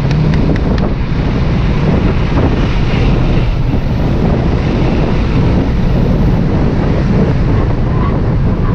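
Subaru WRX's turbocharged flat-four engine running hard during a timed trackcross run, with heavy wind noise buffeting the microphone and covering much of the engine.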